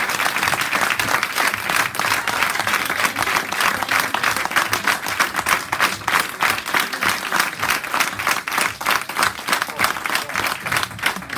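Audience applauding, the dense clapping thinning out into distinct individual claps over the second half.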